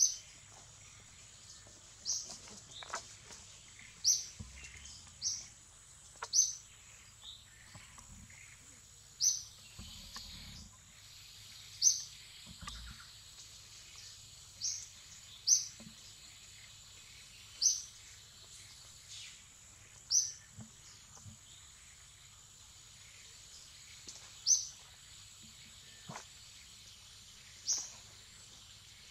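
Forest ambience: a bird repeating a short, high chirp about a dozen times, one to three seconds apart, over a steady high insect drone.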